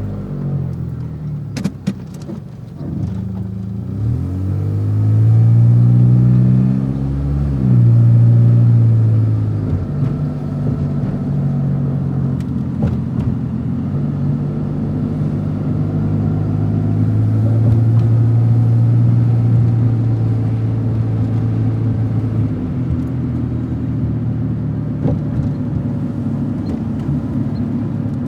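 Car engine running, revved up and let fall back several times over the first ten seconds, then running steadily. A few sharp clicks come about two seconds in.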